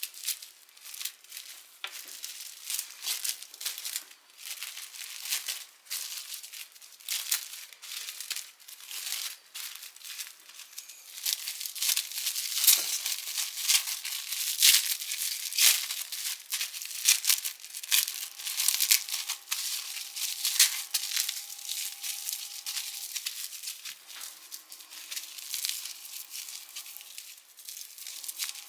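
Crinkling and rustling of wrapping being handled, a dense run of small crackles that grows busier and louder about a third of the way in.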